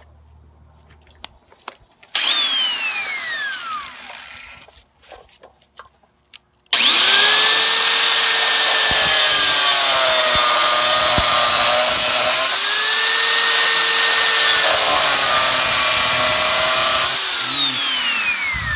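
Corded angle grinder with a cutting disc, run briefly and left to spin down, then cutting into a wing's mounting bracket. About seven seconds in it comes up to a loud steady whine whose pitch dips twice as the disc bites. Near the end it is switched off and its whine falls away as it spins down.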